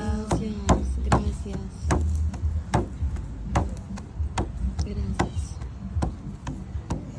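Hand percussion struck in a steady beat, about two and a half sharp strikes a second, in a sound-healing performance. A voice sounds briefly at the start.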